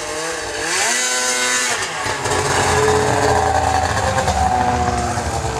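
Arctic Cat ZR 800 snowmobile's two-stroke engine revving, its pitch rising about a second in, then dropping. It then runs loud and steady as the sled passes close by.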